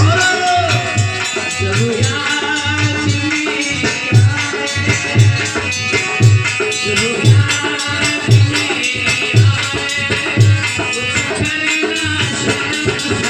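Devotional music with a steady, deep drum beat, a shaker or rattle ticking rapidly over it, and a melody line above.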